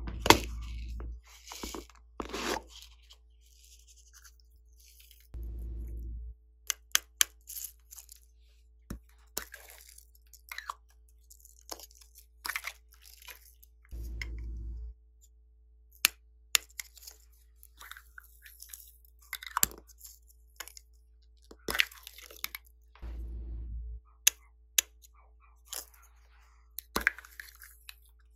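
Scattered light clicks and crackles of sequins, confetti and glitter being sprinkled and dropped onto slime in a glass dish, along with the handling of small plastic containers. A short low rumble about a second long comes four times: at the start, about a quarter of the way in, halfway, and about four-fifths of the way through.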